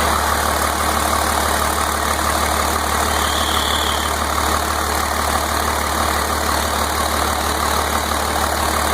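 Freshly rebuilt 1992 Cummins 5.9 12-valve inline-six diesel idling steadily, on its first run since the rebuild.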